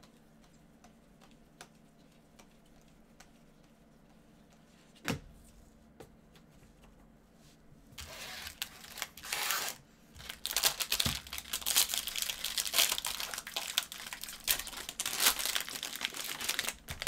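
Foil wrappers of trading-card packs crinkling and tearing as the packs are opened, starting about eight seconds in. Before that, only faint ticks of cards being handled and one knock about five seconds in.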